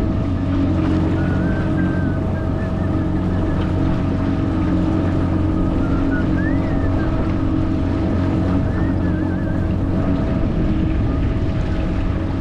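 Outboard motor running steadily at cruising speed, driving an aluminum boat across a lake, with water rushing along the hull. A few faint high wavering notes sound above it.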